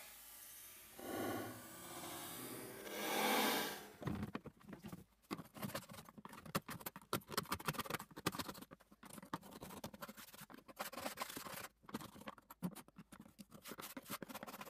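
A small metal hand tool scraping hardened calcium scale out of a whole-house humidifier's water pan. A few longer scraping strokes come first, then about four seconds in it turns to quick, irregular short scratches and ticks as the scale is chipped away.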